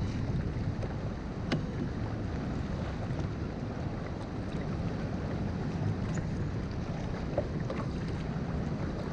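Wind buffeting the microphone over choppy sea water slapping around a fishing kayak, a steady rushing noise. A single sharp knock comes about one and a half seconds in.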